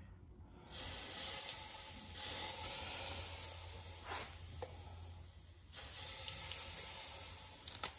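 Water squirted from a plastic bottle onto a heated exhaust stud and cast-iron cylinder head, hissing and sizzling into steam in about three squirts. The quench cools the seized stud so it can be worked free.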